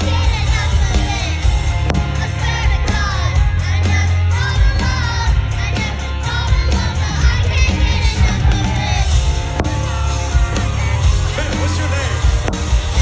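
Live rock band playing loud over a concert PA, with heavy bass and singing. A crowd yells along.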